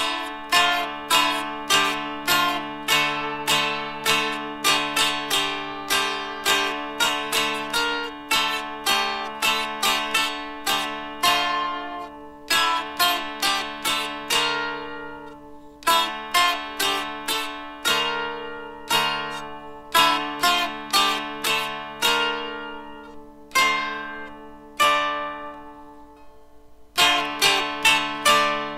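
Dulcimer playing a tune, plucked melody notes sounding over steady drone strings. A few times the playing pauses and the notes ring out and fade, the longest fade near the end, before the melody picks up again.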